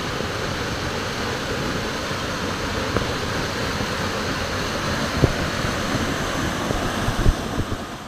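Steady rush of the Sindang Gile waterfall, water falling onto the rocks of its plunge pool, with a few brief low thumps on the microphone about five and seven seconds in.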